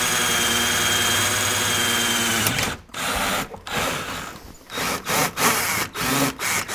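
Power drill running steadily for about two and a half seconds as it bores a hole through a classic Mini's interior panel for a wire, then stopping, followed by three short bursts of drilling.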